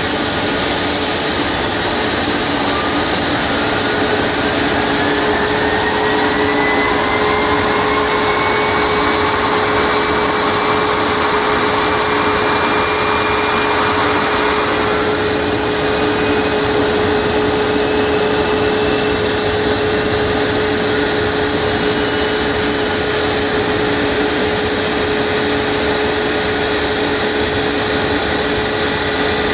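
CFM LEAP-1B turbofan on a Boeing 737 MAX running during a preservation engine run: a loud, steady rush with a whine that rises in pitch over roughly the first fifteen seconds and then holds almost level, and a steady hum underneath.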